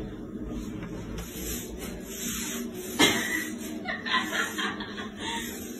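A woman laughing after a sharp knock about three seconds in.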